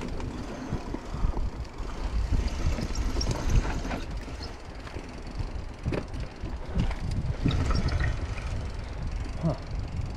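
Mountain bike descending a dirt singletrack: a steady low rumble of tyres rolling over dirt and roots, with many short clicks and knocks as the bike rattles over bumps.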